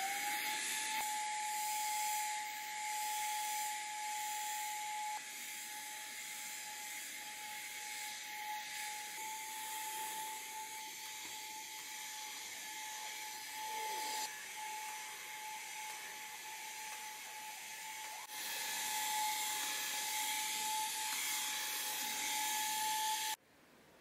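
MOOSOO cordless stick vacuum running, a steady high motor whine over the hiss of suction. It spins up at the start, runs quieter through the middle, and cuts off suddenly near the end as it is switched off.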